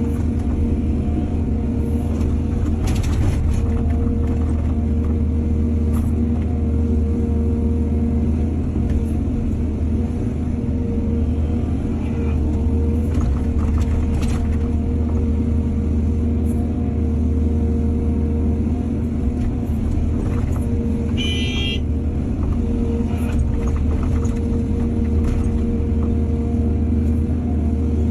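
Heavy diesel engine of an excavator running steadily with a deep hum, with a few scattered knocks and a short high squeal late on.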